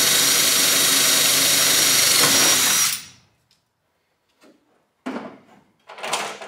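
Bosch cordless drill running steadily as it drills a hole through the fuel-valve bracket into the aircraft's aluminium structure, stopping about three seconds in. A couple of short handling noises follow near the end.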